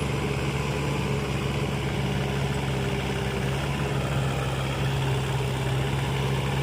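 Heavy machinery diesel engine running steadily at an even speed, a constant hum that holds one pitch throughout.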